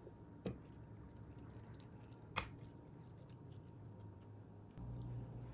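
Faint soft squelching of raw chicken thigh meat being handled on a wooden board as it comes off the bone, with two small taps about half a second and two and a half seconds in, over a low steady hum.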